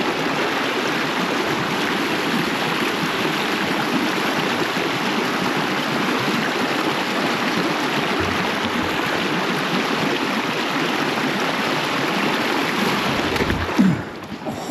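Stream water rushing, a steady even wash that drops away sharply near the end.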